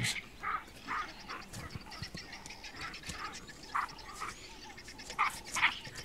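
Infant chacma baboons calling in short, repeated bursts as they wrestle in play, with the loudest calls about five seconds in.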